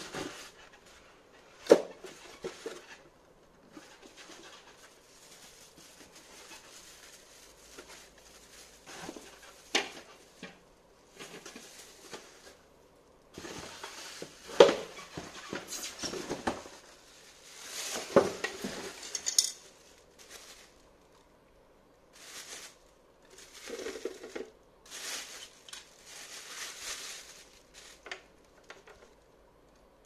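Cardboard box and styrofoam packaging being handled while unpacking: on-and-off rustling and scraping, with several sharp knocks.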